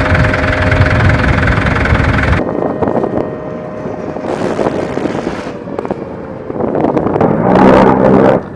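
Engines running with a steady high whine; the sound changes abruptly about two and a half seconds in to quieter, rougher engine noise, which swells again near the end.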